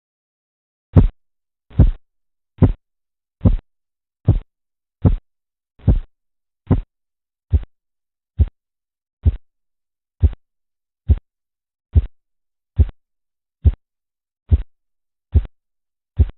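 Korotkoff sounds heard through a stethoscope placed over an artery beneath a deflating blood pressure cuff: even tapping thumps, one with each heartbeat, about seventy a minute, beginning about a second in. The start of this tapping after silence is phase I, which marks the systolic pressure.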